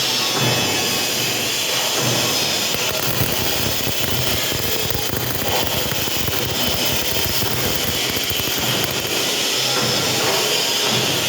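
Electric welding arc burning steadily with a constant crackling hiss.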